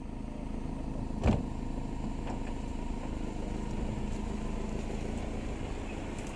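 Open safari game-viewing vehicle's engine running as the vehicle rolls slowly past close by, a steady low rumble with a single knock about a second in.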